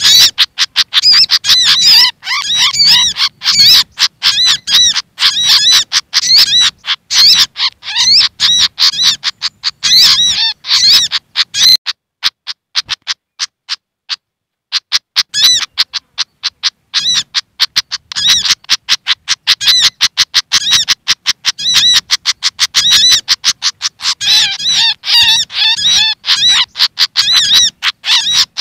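Rapid, loud, chattering bird calls from a bird-lure recording: agitated scolding of the Malaysian pied fantail (sikatan kipas) mixed with agitated sogok ontong calls. The chatter thins out for a few seconds near the middle.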